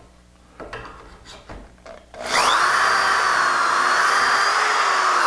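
A few light knocks of handling, then an electric drill spins up, its whine rising, and bores steadily into the wood through a doweling jig for about three seconds, drilling a dowel hole in the end of a rail.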